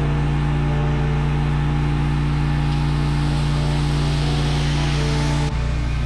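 Gas-engine pressure washer running at a steady speed, with the noisy hiss of its spray above the engine. Near the end the engine drops briefly for a moment, then carries on.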